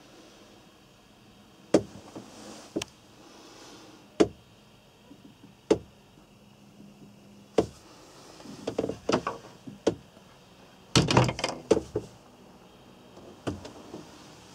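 Sharp knocks and clicks of wooden cabin doors and their latches being handled, opened and shut, single ones every second or two, then a quick rattling cluster about eleven seconds in.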